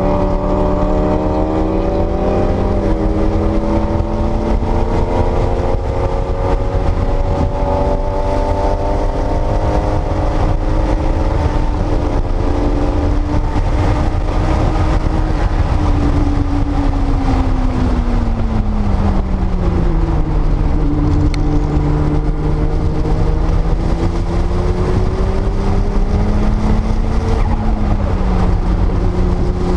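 1979 Porsche 930 Turbo's turbocharged air-cooled flat-six engine under hard acceleration, climbing in pitch and dropping sharply at two upshifts. The engine note then falls away for a few seconds as the car slows, holds steady, and rises briefly near the end. A heavy low rumble runs underneath.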